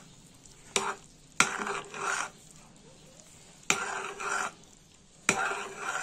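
A metal spoon stirring thick carrot kheer (milk, rice paste and grated carrot) in a metal kadai. There are four scraping strokes, each starting with a clink of the spoon against the pan, and the spoon is kept moving so the kheer does not stick to the bottom.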